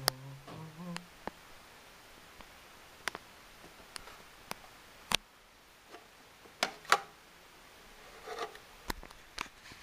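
Quiet room with scattered short clicks and taps at irregular intervals, typical of a handheld camera being moved around. The sharpest clicks come about five and seven seconds in.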